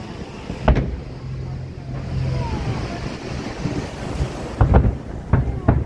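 Aerial fireworks shells bursting: one sharp bang under a second in, then a quick run of about four bangs near the end, over a steady low rumble and wind noise on the microphone.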